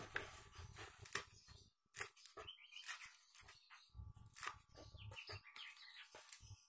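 Kitchen knife slicing red chilies on a wooden cutting board: irregular sharp taps of the blade hitting the board, with some low handling thuds. Short bird chirps come in around the middle.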